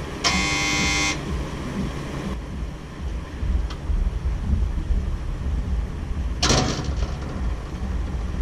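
A short buzzing tone in the first second, then a click about halfway, and a steel street gate clanging shut near the end, over a steady low rumble.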